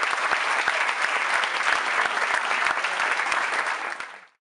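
Audience applauding, a dense patter of many hands clapping that fades out and drops to silence about four seconds in.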